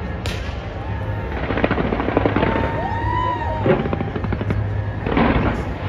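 Fireworks display going off: a fast, irregular run of bangs and crackles.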